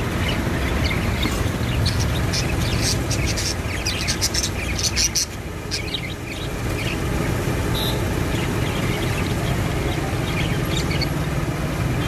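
Budgerigars chirping and chattering in quick, high bursts, thickest in the first half and again near the end, over a steady low rumble.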